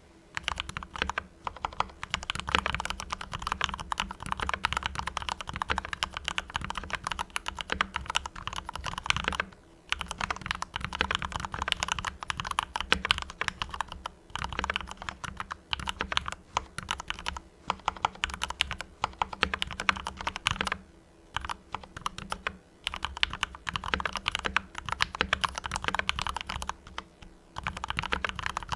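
Mars Pro mechanical keyboard with fully lubricated Cherry MX Red linear switches being typed on fast, a dense continuous patter of keystrokes broken by a few brief pauses.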